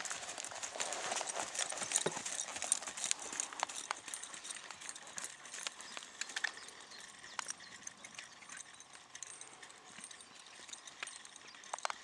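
A ridden horse's hoofbeats on a sand arena, with many short soft ticks, growing fainter after a few seconds as the horse moves away.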